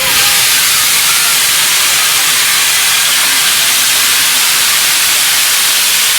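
LNER A1 class 4-6-2 steam locomotive No. 60163 Tornado, standing, blowing off steam: a loud, steady hiss that starts suddenly.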